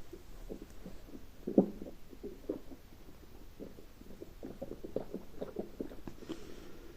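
Human stomach growling: an irregular run of short gurgles and pops. The loudest comes about one and a half seconds in, and they come quicker and closer together in the second half.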